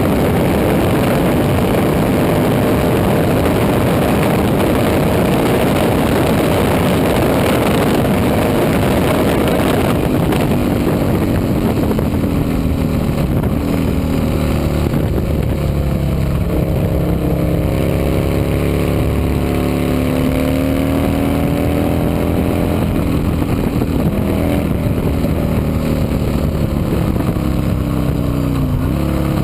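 Vintage racing motorcycle engines running hard. For the first ten seconds or so it is a dense, even engine noise; after that single engines stand out, their pitch rising and falling repeatedly, with sudden drops as the revs fall.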